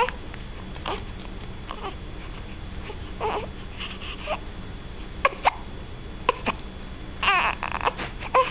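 A baby hiccuping about once a second, each hiccup a short sharp squeak, with brief fussy whimpers between them and a longer, wavering cry about seven seconds in.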